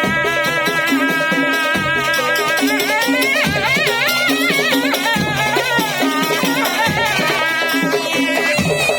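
Madurese tong-tong (daul) ensemble playing: pitched percussion repeating a pattern under a deep drum stroke about every 1.7 seconds, with a reedy wind melody that wavers and bends, rising about midway.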